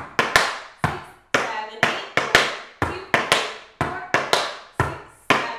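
Tap shoes striking a portable wooden tap board in a swung rhythm: quick doubled taps of flaps alternating with single heel drops, each tap ringing briefly, a flap-heel phrase.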